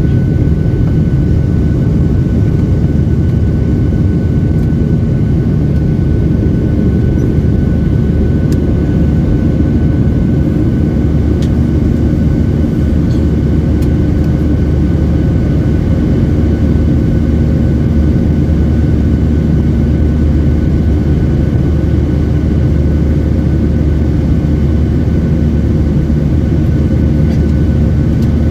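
Steady cabin drone of a Boeing 737-800 in flight: its CFM56-7B turbofan engines and the airflow make an even, deep noise with a faint constant whine on top.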